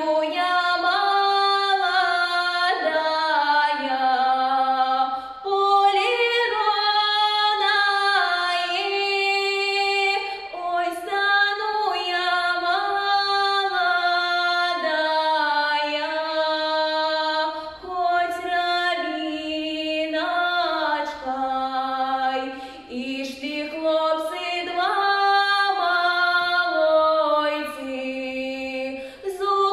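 A young woman singing a Belarusian folk song solo and unaccompanied, in long held notes that step up and down in pitch.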